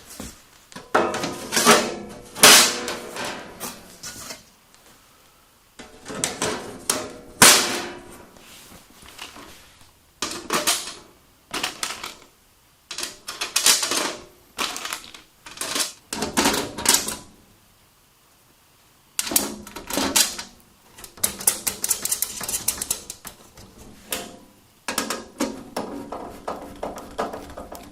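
Bursts of clicking and clattering from metal hardware and tools being handled, some knocks ringing briefly, with short pauses in between.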